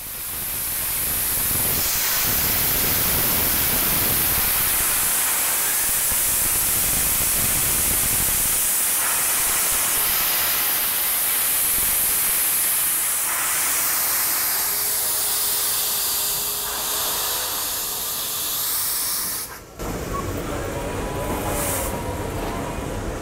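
NSW C38-class steam locomotive 3801 blowing off a loud, steady hiss of steam from its cylinder drain cocks as it gets under way. About twenty seconds in the hiss cuts away sharply, leaving quieter train and crowd sounds.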